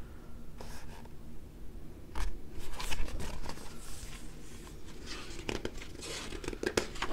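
Pages of a hardcover picture book being handled and turned: irregular short paper rustles and small taps.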